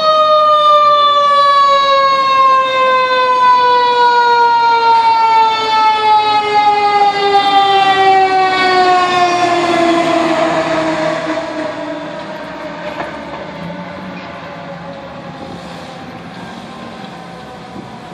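Fire truck's mechanical siren, wound up to a high wail and then left to coast, its pitch falling slowly for about twelve seconds. The truck's noise swells as it passes close by about ten seconds in, then the sound fades as it moves away.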